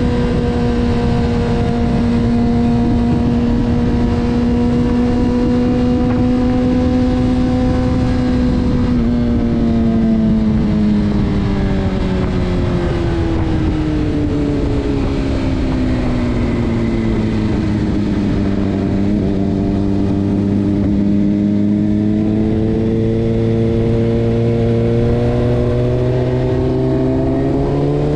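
Honda CBR600RR inline-four engine running at a steady high pitch, then its revs falling slowly for about ten seconds and climbing again near the end.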